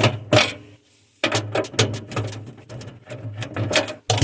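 A driver backing out small screws from the plastic freezer panel: a rapid run of clicks over a steady low hum, stopping briefly about a second in, then going on.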